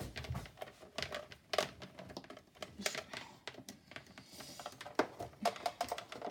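Irregular light clicks, taps and rustling from a food processor's power cord and plug being handled; the motor is not running.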